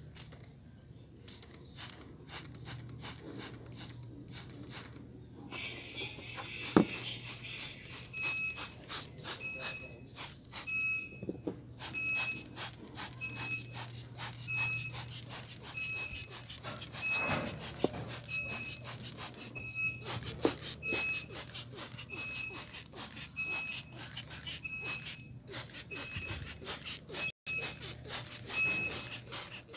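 Degreaser being sprayed from a hand trigger spray bottle and brushed over the engine's plastic covers and hoses: many quick squirting and rubbing strokes. A short, high electronic beep repeats slightly faster than once a second from about eight seconds in.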